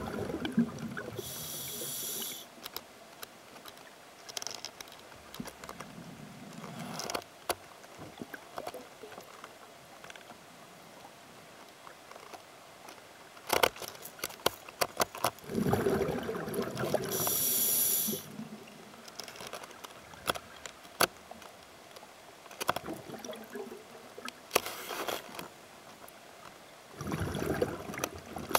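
A scuba diver breathing through a regulator underwater: gurgling exhaled bubbles, each followed by a short hiss from the regulator. There are three full breaths, at the start, in the middle and near the end, with scattered sharp clicks and knocks from handling the camera between them.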